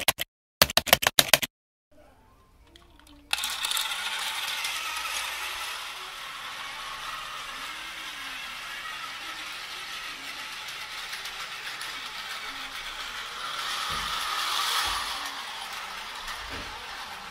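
A burst of rapid clicking in the first second and a half, then a battery-powered toy train running on plastic track: a steady whirring, rattling motor-and-wheel noise that grows louder around fourteen seconds in as the train comes closer.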